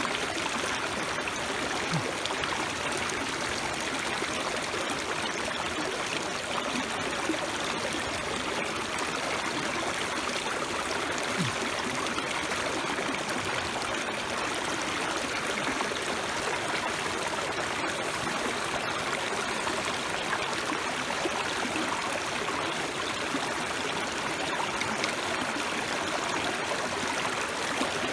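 Food sizzling on a thick iron griddle over a fire: a steady, even hiss.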